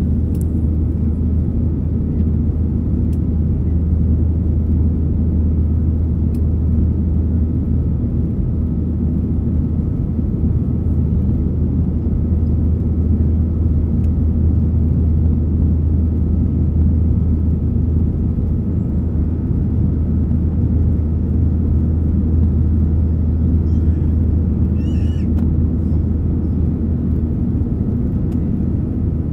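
Steady, loud rumble of an airliner's jet engines and airflow, heard inside the cabin during the climb after takeoff, with a faint steady whine above it.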